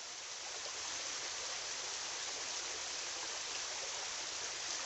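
River water running steadily, an even rushing sound.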